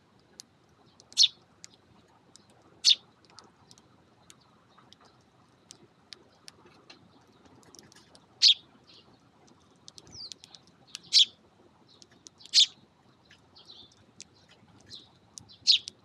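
Eurasian tree sparrows giving short, sharp single chirps, about six loud ones a second or several apart, with fainter chirps and light ticks of beaks pecking at rice on a hard floor between them.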